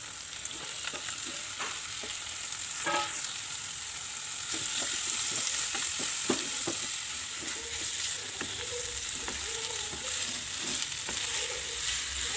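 Shredded chicken and chili paste sizzling in hot oil in a nonstick wok, stirred and turned with a wooden spatula that knocks and scrapes against the pan now and then.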